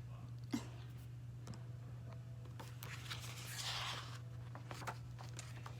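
Paper rustling as a picture book's page is handled and turned, loudest about three seconds in, with a sharp click near the start and a few small handling clicks, over a steady low hum.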